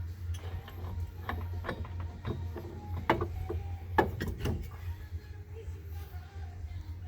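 Irregular metallic clicks and clinks of hand tools and car parts being handled during CV axle and hub reassembly, loudest about three and four seconds in, over a steady low hum.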